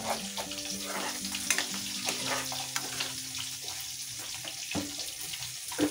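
Ground onion and garlic paste sizzling in hot oil in a steel wok, stirred with a metal spoon that scrapes and clicks against the pan now and then.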